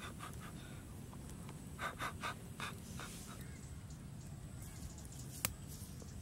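A few short, breathy puffs of a person blowing through an egg held at the mouth, then a single sharp click near the end.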